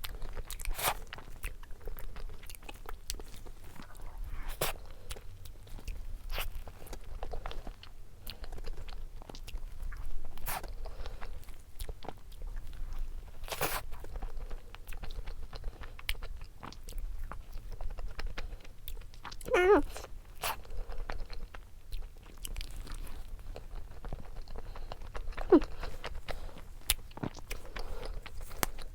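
Close-miked eating: a person biting and chewing a soft cream-filled doughnut, with many scattered short mouth clicks and smacks. A brief wavering hum comes about two-thirds of the way through.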